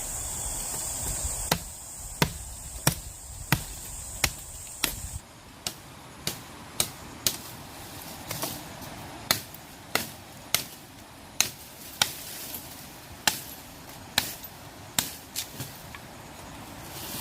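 Sharp chopping strikes of a hand tool at an even pace, about one and a half a second. For the first five seconds a steady high hiss runs underneath, then stops abruptly.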